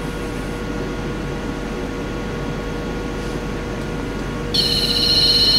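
Steady background hiss and hum, then about four and a half seconds in a REM pod's alarm starts: a high-pitched, wavering electronic tone, noticeably louder than the background. The alarm means its proximity sensor has been tripped.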